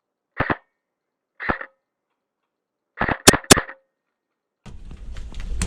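Airsoft electric rifle firing single shots, each a short sharp snap: a quick pair, then one more, then a fast string of three or four. Near the end a steady rustle with scattered clicks sets in.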